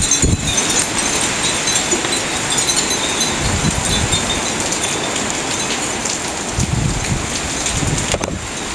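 Heavy rain pouring steadily in a thunderstorm, with gusts of wind rumbling on the microphone now and then and a wind chime tinkling faintly through it.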